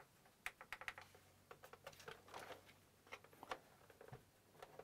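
Faint, irregular clicks of fingers pressing the front power button of a PS4 Pro, several quick presses with no beep or fan start following: the console does not power on.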